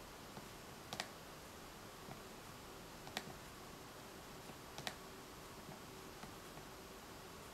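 Quiet, sharp clicks of a laptop touchpad being pressed: three distinct clicks about a second in, at about three seconds and near five seconds, with a few fainter ticks between.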